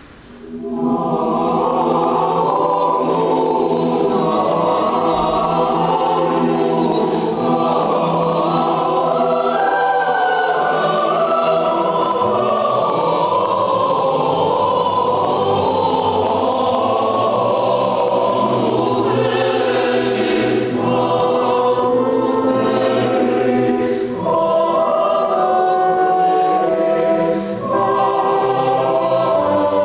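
Mixed choir singing slow, sustained chords in several parts, coming in about a second in.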